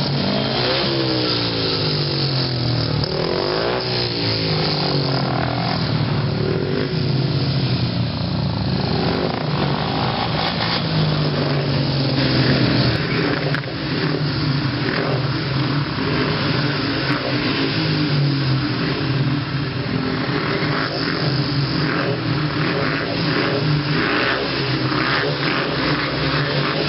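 Several speedway motorcycles' single-cylinder, methanol-burning engines running and being revved at the start line. The engine pitch rises and falls in the first few seconds, then the engines hold a steadier, uneven rev.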